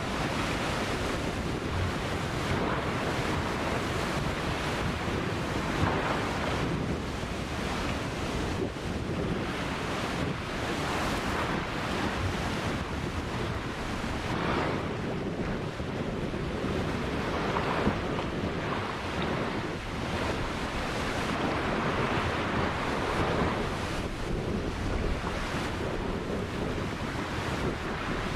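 Ocean waves breaking and washing on a beach, a continuous surf rush swelling and easing every few seconds, with wind noise on the microphone.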